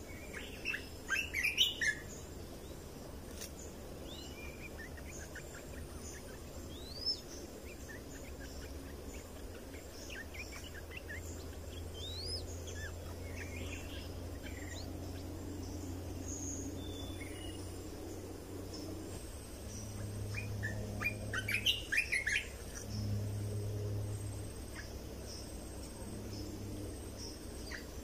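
Red-whiskered bulbuls calling: a quick cluster of short chirpy notes about a second in, scattered single notes over the next several seconds, then another quick cluster about twenty seconds in.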